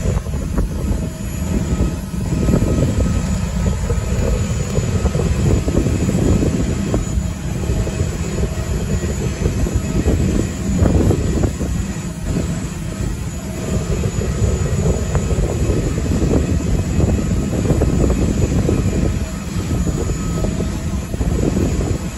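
Airport apron noise: a steady, loud low rumble of jet aircraft engines that swells and dips, with a faint steady whine above it.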